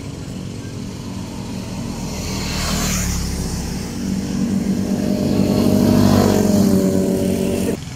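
Motorcycle engines on the road, with passing motorcycles swelling loudest about six seconds in, then cutting off suddenly just before the end.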